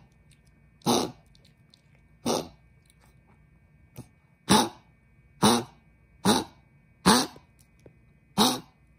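Maltese dog coughing hard: a run of seven short, harsh coughs, one every second or so. It is the cough of a dog whose narrowed larynx (laryngeal stenosis) sets off coughing fits close to bronchitis.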